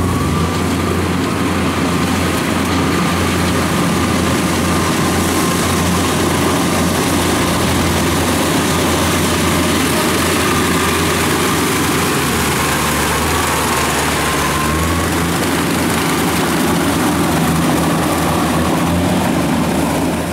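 Engine of a tracked rice-transport crawler running steadily as it crawls through mud under a heavy load of rice sacks, with a faint thin whine above it.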